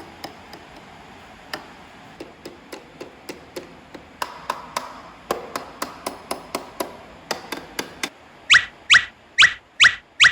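Light, irregular tapping and knocking, then about six sharper, louder strikes near the end, roughly two a second, each with a quick falling ring.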